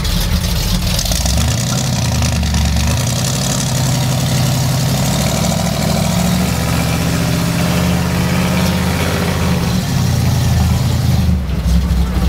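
V8 engine of a 1973 Ford F100 pickup, a Ford FE, heard from inside the cab while the truck is driven. The engine note steps up in pitch about a second and a half in and again near the end, holding steady in between as the truck gathers speed.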